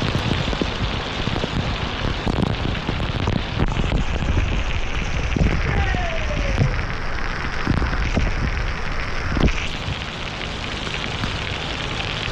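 Heavy rain pouring down steadily: a dense hiss of falling water with many close individual drop hits.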